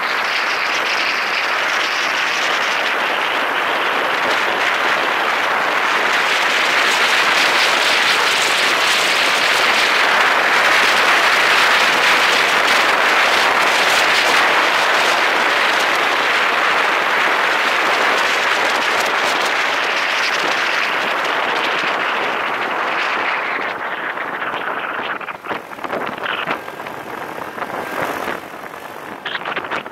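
Wind rushing over the microphone of a camera riding along on a moving scooter: a loud, steady rush that builds through the middle, then eases and turns gusty and uneven near the end.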